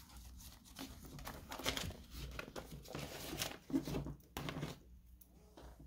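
Paper rustling and crinkling as pages or sheets are handled, in a run of irregular soft crackles that die down near the end.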